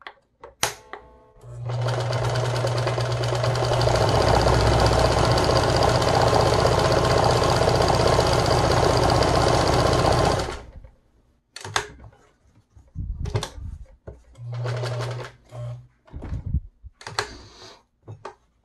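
Meister 76 Programatic electric sewing machine sewing a medium-width zigzag stitch for about nine seconds. It picks up speed a few seconds in, then stops abruptly. A few clicks come before it, and after it there are scattered clicks, fabric handling and a brief second run of the machine.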